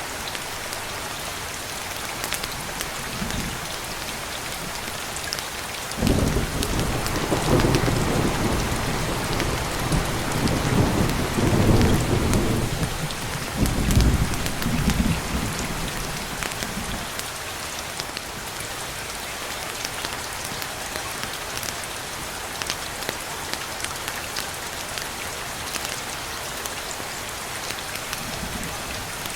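Steady heavy rain, with a rolling thunder rumble that starts suddenly about six seconds in, swells in several waves and dies away about ten seconds later.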